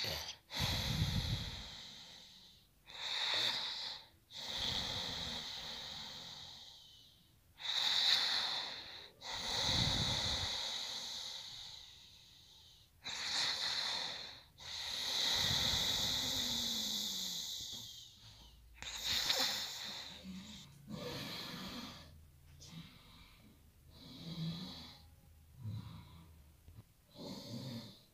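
A man snoring heavily in his sleep: a series of long, noisy, hissing breaths with pauses between them, some with a low throaty rattle. Near the end the breaths turn shorter and fainter.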